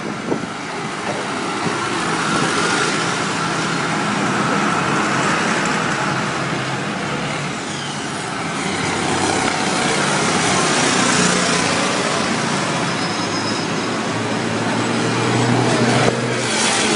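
A line of large farm tractors drives past one after another, their diesel engines running under load. The sound grows louder as each tractor passes close by, then eases off.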